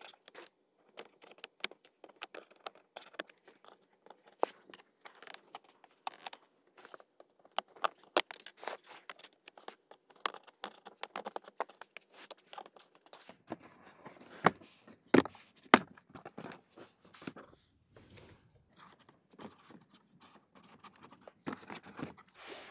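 Plastic trim fasteners and panels of a Tesla Model Y's cabin air filter housing being unclipped and pulled by hand: an irregular run of sharp plastic clicks, snaps and scrapes, with a few louder snaps about halfway through, as the footwell trim comes off to reach the filters.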